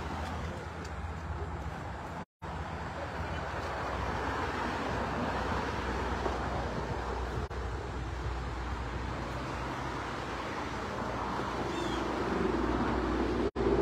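Outdoor street traffic noise, a steady rumble and hiss with a low hum beneath. The sound cuts out completely for a moment about two seconds in and again just before the end, and a pitched sound joins near the end.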